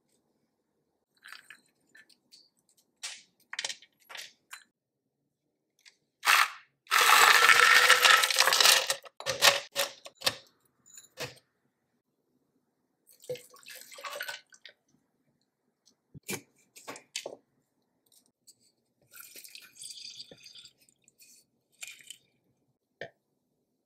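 Kitchen handling sounds as a daiquiri is built in a plastic blender cup. The loudest part is a two-second clatter of ice cubes and frozen strawberries going into the cup. Around it are scattered clinks and knocks of a steel jigger and glassware, a short pour, and a lime squeezed in a hand press.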